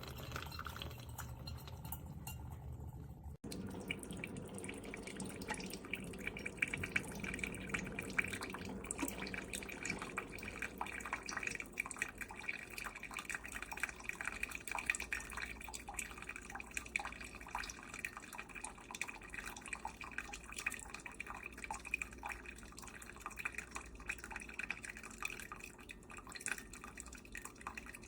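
OXO Brew 8-Cup coffee maker brewing: water dripping and trickling into the carafe as many small, quick drips over a steady background. The sound begins abruptly about three seconds in.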